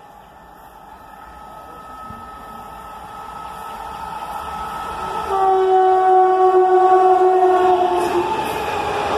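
Passenger express train approaching at speed and running through without stopping: a steadily rising rumble of wheels on rails, then the locomotive's horn sounds loudly for about three seconds from just past the middle, its pitch dropping slightly as it passes. After the horn, the clatter of ICF coaches rushing by.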